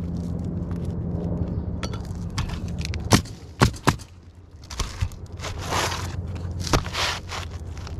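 Roofing work: about five sharp knocks, the first about three seconds in, and a couple of scraping rustles, over a steady low machine hum that drops away for a moment in the middle.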